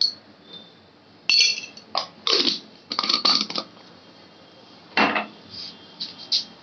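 A glass salt jar clinking as it is handled over a steel bowl, one clink ringing briefly, with short rattling and scraping sounds as salt is shaken onto flour and stirred in by hand.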